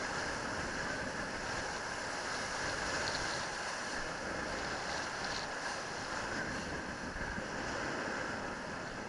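Wind rushing over a helmet camera's microphone, mixed with the hiss of a kiteboard skimming across choppy water: a steady rushing noise with an uneven low rumble.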